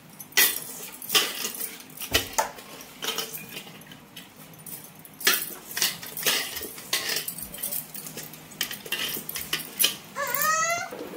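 Clinks and knocks of a mixer-grinder jar and steel containers being handled while batter is scraped out of the jar by hand. A short rising whine is heard near the end.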